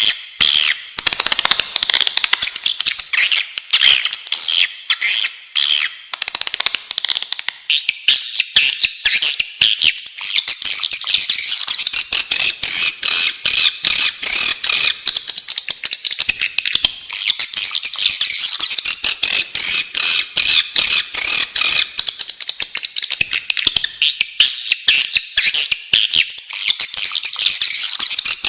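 Swiftlets twittering in a dense, continuous chatter of rapid high chirps: a swiftlet lure call recording of the kind played to draw swiftlets into a nest house. The chatter thickens and rises a little about a quarter of the way in.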